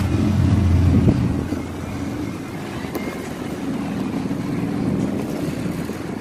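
A car's engine pulling away, strongest in the first second or so, then dropping off as it moves away, with a fainter steady engine sound carrying on.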